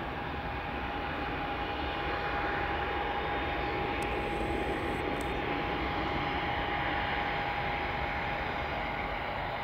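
Twin jet engines of a Boeing 767-300ER on final approach with gear down: a steady rumble with a steady whine in it, swelling a little as the aircraft comes closer.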